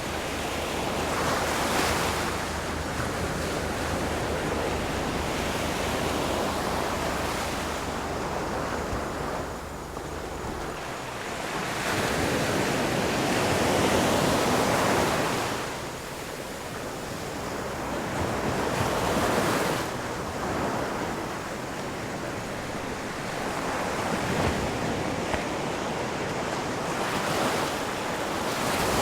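Ocean surf breaking on a shore: a steady rush of water that swells and falls back every few seconds as the waves come in.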